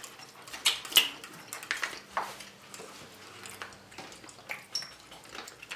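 Light, scattered clicks and clinks of dishes and cutlery as people eat at a table.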